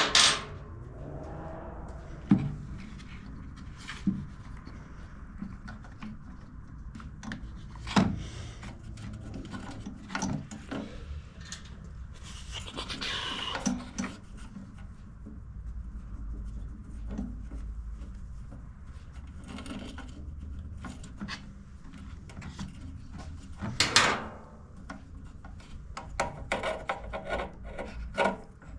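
Workbench handling of small generator parts and hand tools: scattered knocks, clicks and rubbing, with sharper knocks near the start, about a third of the way in and near the end.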